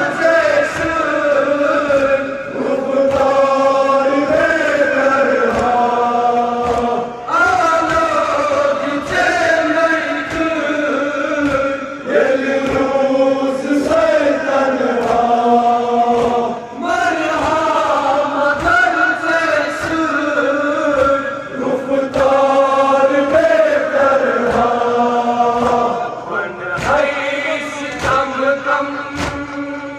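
Men's voices chanting a Kashmiri noha, a Muharram lament, in a repeating melody. Under it runs a steady beat of hands slapping chests in matam.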